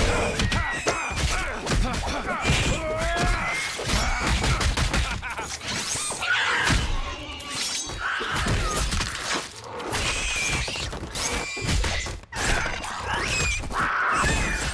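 Animated fight sound effects: a dense run of hits, crunches and splatters, with short rat squeals and screeches between them.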